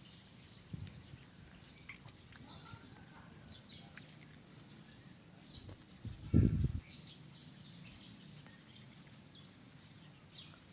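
Small birds chirping repeatedly in short high calls, with a brief low thud about six seconds in that is the loudest sound.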